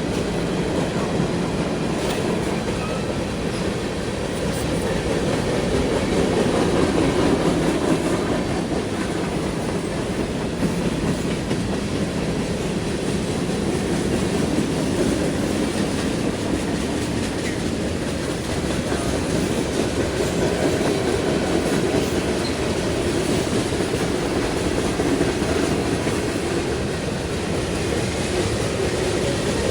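A train rolling steadily past, its wheels clattering over the rails in a continuous clickety-clack.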